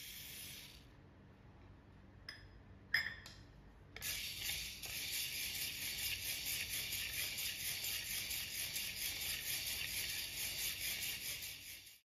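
Dry mung beans (whole green gram) poured from a metal cup into a dry pot, rattling in for about a second, then a few sharp clicks. From about four seconds in there is a steady, gritty rattle as the beans are stirred and scraped around the pot with a wooden spatula to dry-roast them.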